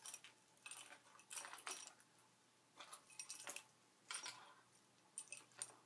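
Fishing tackle being handled at a table: about six short bursts of small jingling, clinking and rustling, with quiet gaps between them.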